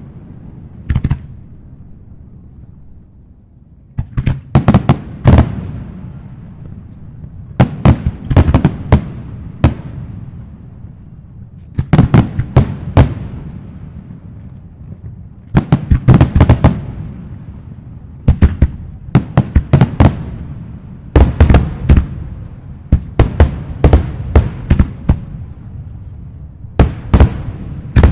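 Aerial fireworks shells bursting in volleys of sharp bangs every few seconds, each volley trailing off in a low rumbling echo.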